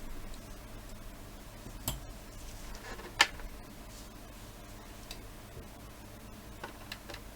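A few light clicks and taps of small parts being handled at a workbench, the sharpest about three seconds in, with two softer ones near the end.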